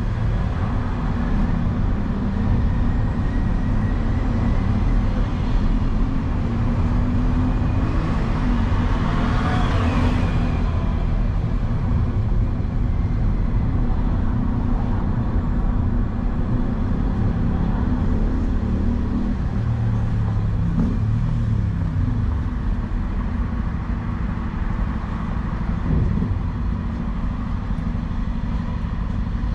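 Steady low road and engine rumble from a vehicle driving through city traffic. A louder hiss swells and fades about ten seconds in, like another vehicle passing close by.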